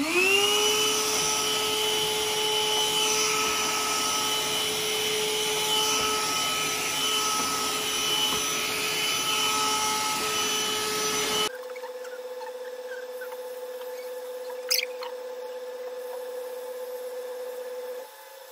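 Handheld cordless vacuum cleaner switched on, its motor whining up to speed and then running steadily for about eleven seconds before cutting off abruptly. A quieter steady hum with a single click follows.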